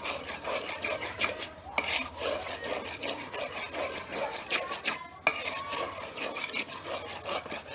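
Metal spoon scraping around the bottom of an aluminium pot while stirring ground coconut and sugar, repeated rasping strokes with two short pauses. The sugar is being stirred in until it blends with the coconut.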